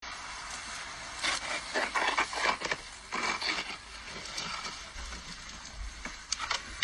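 Snow shovel dragged by a dog, scraping and crunching over snow in irregular strokes over a steady outdoor hiss.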